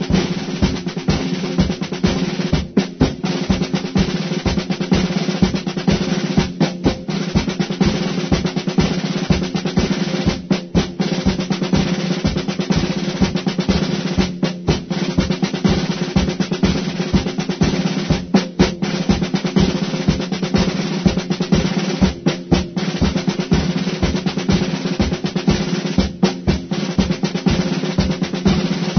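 Military parade drums playing a steady, fast marching cadence. The pattern repeats about every four seconds, each time with a brief break.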